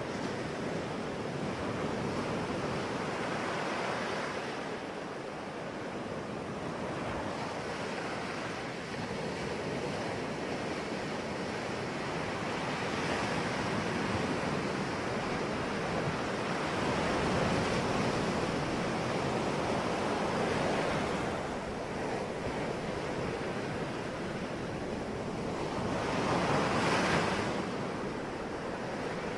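Ocean waves breaking and washing ashore in a steady surf, swelling and fading every few seconds, with the biggest wave breaking near the end. Some wind on the microphone.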